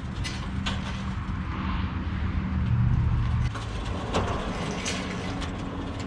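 Welded steel sliding barn-door frame rolling along its overhead track on rollers: a low rumble with scattered clicks and knocks. It is loudest about three seconds in, then drops off suddenly.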